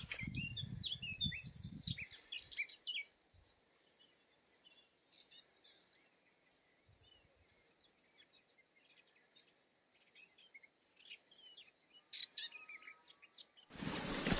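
Wild birds chirping and calling in woodland, short, quick chirps scattered throughout, thickest in the first few seconds and again near the end. A low rumble sits under the first two seconds, and a louder noise cuts in just before the end.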